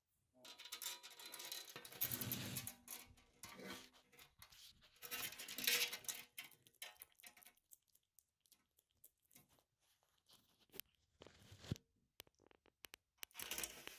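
Close handling noises: rustling, scraping and clicking as a bearded dragon is moved about on a wooden tabletop. The noises are busiest in the first half and thin to a few scattered clicks later.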